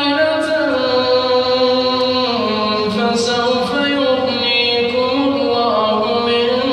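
A man's voice reciting the Quran in the melodic, drawn-out tajweed style, holding long notes that step slowly up and down in pitch.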